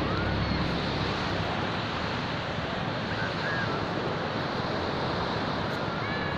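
Small waves washing onto a sandy beach: a steady, even rush of surf.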